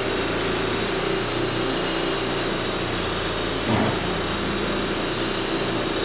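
Electric random orbital polisher running steadily, its terry cloth pad buffing scratch-remover polish on a powder-coated refrigerator door. It gets briefly louder a little past halfway.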